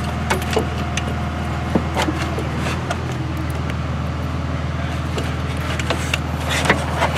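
Scattered light clicks and taps of metal parts as a catch-can mounting bracket and bolt are fitted by hand in an engine bay, over a steady low hum.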